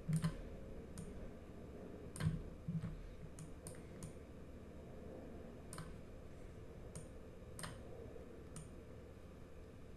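Scattered single clicks from a computer mouse and keyboard, about a dozen spaced irregularly, over faint room tone.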